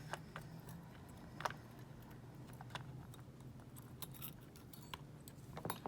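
Faint, scattered small metallic clicks and ticks of a wire pick working inside a WEP Secure 5 lever padlock, a few separate clicks spread over several seconds.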